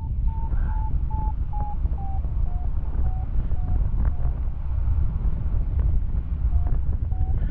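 Wind rushing over the microphone in flight, with a paragliding variometer beeping about twice a second, the sign that the glider is climbing in lift. The beeps sink slightly in pitch, stop for about two seconds midway, and start again near the end.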